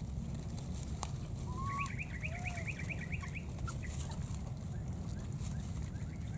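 Animal calls: two short whistled notes, then a fast run of about ten short high chirps lasting under two seconds, over a steady low rumble.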